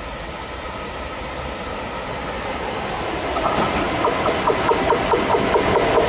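SNCF BB 27000 electric locomotive hauling a freight train, approaching and passing through a station, its rumble growing steadily louder. From about halfway through, high ringing tones broken into quick pulses and regular wheel clicks join in as the locomotive reaches the platform.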